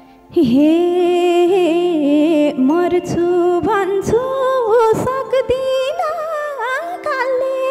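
Nepali folk dohori music: a single wavering, ornamented melody line that starts about a third of a second in and runs on, with held steady notes underneath.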